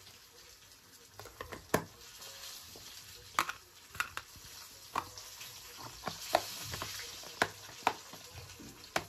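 Small plastic food tubs clacking down on a stone countertop and a snap-on lid being pressed shut: about a dozen sharp, irregular clicks over a steady background hiss.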